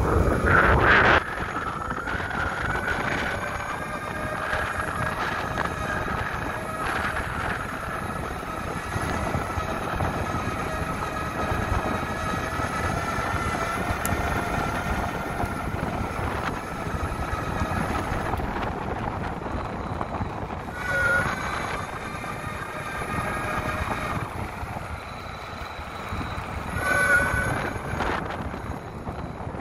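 Electric mountainboard's motors whining steadily under way, over the rumble of its off-road wheels rolling on the ground. Wind buffets the microphone in the first second, and the whine swells briefly twice later on.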